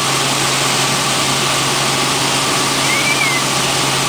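Helicopter engine and rotor noise heard from inside the cabin in flight: a loud, steady drone with a constant low hum.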